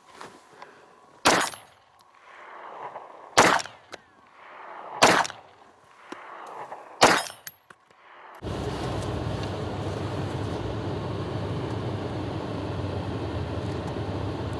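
Four single pistol shots from a Glock handgun built with ZEV parts, spaced about two seconds apart. About eight seconds in, the sound switches suddenly to a steady low noise.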